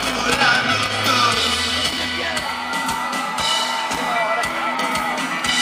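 Live rock band playing: electric guitar, bass and drum kit. The low bass notes stop about a second and a half in, while guitar and drums carry on.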